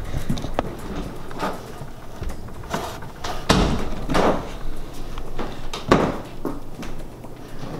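A series of irregular knocks and thumps, about half a dozen, with rustling between them; the loudest thump comes about three-quarters of the way through.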